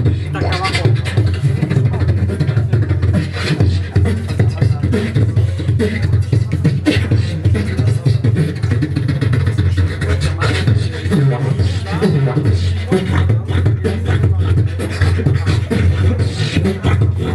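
A beatboxer performing into a handheld microphone: a fast, unbroken rhythm of heavy bass kicks with sharp snare and hi-hat clicks made by mouth.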